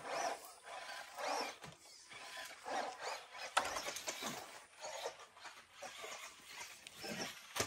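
Electric RC buggy (Tamiya Rising Fighter) being driven out of sight. Its motor whines up in repeated short bursts that swell and fade about once a second, with tyres scrabbling on dirt.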